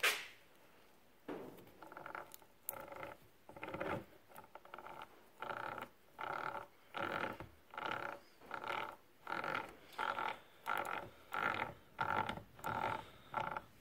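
Brushcutter gearhead squeaking in a steady rhythm as it is worked back and forth by hand, about one and a half squeaks a second, faint at first and louder from a few seconds in. Its bearings are unsealed and have just been greased.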